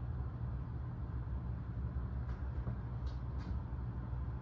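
A steady low hum, with a few faint short high squeaks in the second half.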